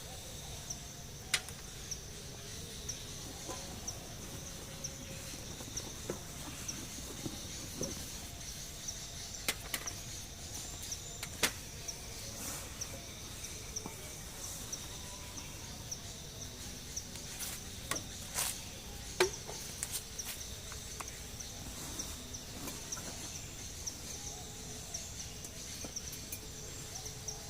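Steady insect chorus in a forest, a continuous high-pitched shrill with a fainter lower band beneath it. Occasional sharp clicks and snaps are scattered through, several of them about 18 to 19 seconds in.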